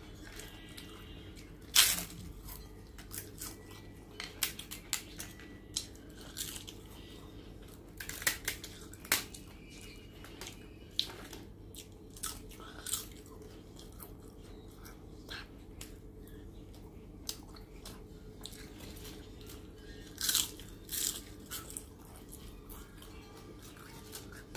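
Crisp fried papad (papadum) cracking as it is broken by hand and crunched in eating: irregular sharp crackles, the loudest about two seconds in, with further clusters around eight seconds and twenty seconds in.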